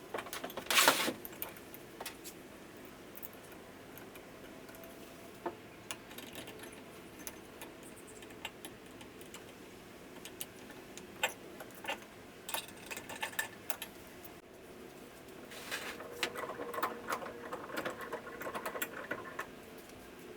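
Metal clicks, taps and rattles of cast-iron bench vise parts being handled and fitted together, in irregular clusters over a faint steady hum.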